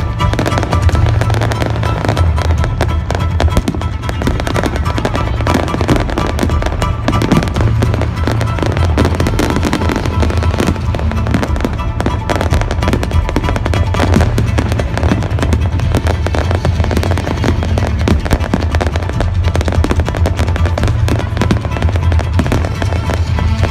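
Fireworks going off in quick succession, a dense run of bangs and crackles, over loud show music with a heavy bass line.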